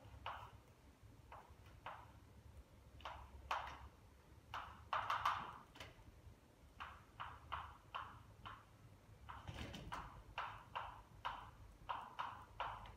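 Chalk writing on a blackboard: irregular quick taps and short strokes of the chalk, a few a second, with brief pauses between groups.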